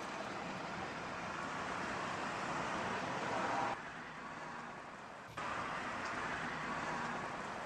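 Steady outdoor road-traffic noise of cars going by, with no words. The level drops suddenly a little under four seconds in and comes back about a second and a half later.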